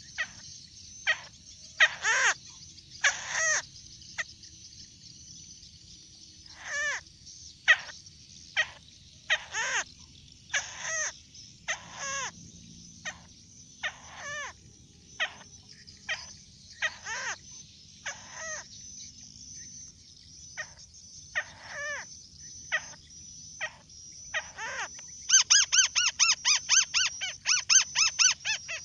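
Crake (burung tikusan) calling: short, high, repeated calls about one a second, quickening into a rapid run of calls near the end, over a steady high hiss.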